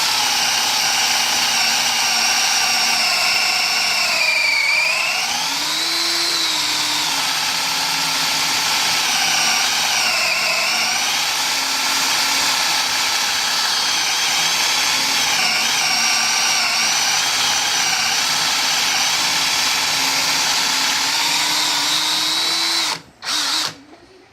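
Electric hand drill running steadily, driving the spindle of a lathe tool post grinder fitted with a drill bit. Its motor whine sags in pitch several times as the bit takes load, then it is switched off near the end, with one short blip before it stops.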